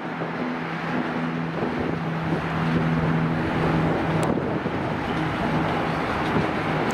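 The four Rolls-Royce Trent 970 turbofans of an Airbus A380-841 at takeoff thrust as it begins its takeoff roll: a steady jet rush with a low drone running through it, growing somewhat louder about two and a half seconds in.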